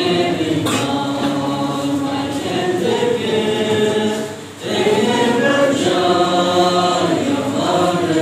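A congregation singing together in long, held notes, with a short break between lines about four and a half seconds in.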